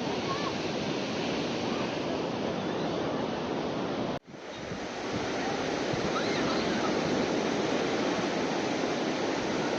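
Sea surf washing steadily on a beach, with wind buffeting the microphone. The sound drops out for a moment about four seconds in, then returns.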